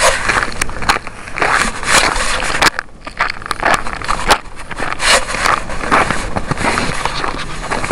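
Footsteps crunching through deep fresh snow at a walking pace, about one to two steps a second, with a brief lull about three seconds in.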